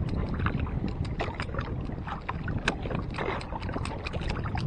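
Water splashing and lapping against the hull of a small outrigger boat, with wind rumbling on the microphone and scattered short, sharp splashes and clicks.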